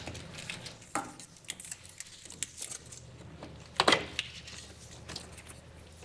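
Plastic wiring-harness connectors being handled and fitted together: a few light plastic clicks and taps, with a sharper click about four seconds in.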